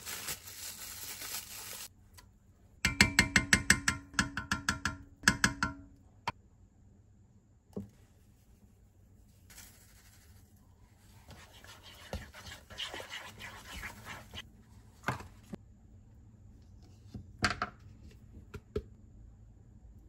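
Food-prep handling at a kitchen counter: a plastic bag rustles as it is pulled out of a stainless steel container. About three seconds in comes a quick run of roughly a dozen knocks with a ringing tone, about five a second. Softer scraping and stirring in the container follow, with a few single clicks near the end.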